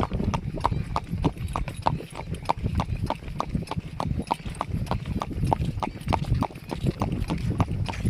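Horse's hooves clip-clopping at a steady, even pace, about three to four hoof beats a second, over a low rumble.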